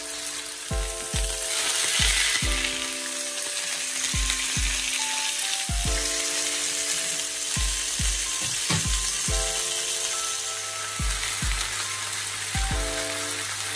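Chicken breasts sizzling in oil in a frying pan, a steady frying hiss, with background music that has a regular beat underneath.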